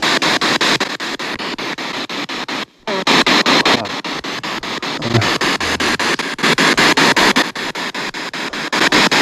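P-SB7 spirit box sweeping through radio stations: loud hissing static chopped into rapid, even clicks several times a second. It cuts out for a moment about three seconds in.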